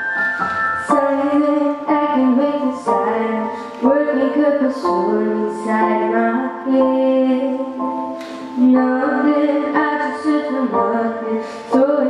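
A young girl singing solo into a microphone over a piano-led instrumental accompaniment, her voice coming in about a second in.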